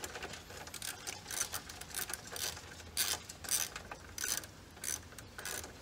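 Socket ratchet clicking in short, irregular runs as it is swung back and forth to loosen the stock exhaust's top mount bolt with a 12 mm socket.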